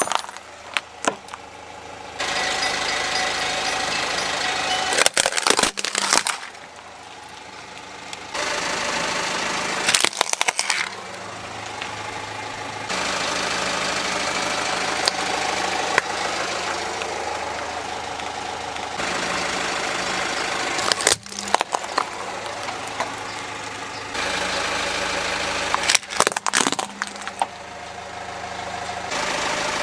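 A car's engine running slowly while its tyre rolls over small plastic and glass objects and crushes them. The engine hum shifts in level every few seconds. Clusters of sharp cracks and crunches come about five seconds in, about ten seconds in, just after twenty seconds and again around twenty-six seconds.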